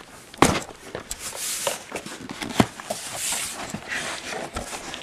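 Dull knocks of something being bashed down, the loudest about half a second in and two more about halfway and near the end, with rustling scrapes between.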